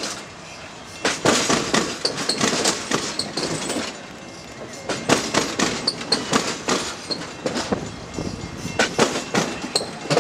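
Passenger railcars rolling past close by, their steel wheels clacking over the rail joints in clusters of sharp knocks every second or two as each truck passes, with a rolling rumble between.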